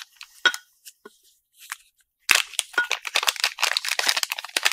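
Small clear zip-lock plastic bag crinkling as it is pulled open and handled: a few scattered crackles, then dense crinkling from about two seconds in.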